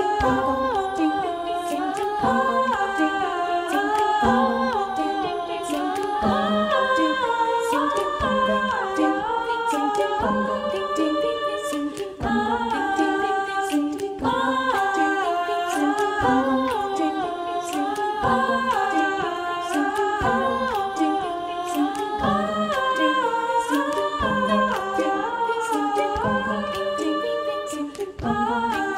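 Choir singing a cappella in wordless vocables that imitate the instruments of Wayang Kulit Kelantan shadow-puppet music, several voice parts moving in a repeating figure, with frequent sharp percussive clicks.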